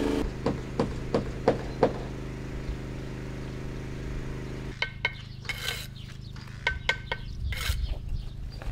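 Building-work sounds: a steady machine hum with a quick run of about five sharp knocks. A little before the halfway point the hum drops away, and scattered clinks and knocks of bricks, rubble and hand tools follow.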